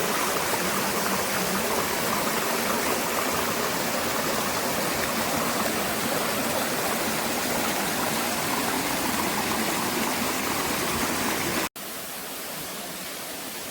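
Steady rush of flowing water. Near the end it cuts off abruptly, and a quieter rush of water carries on.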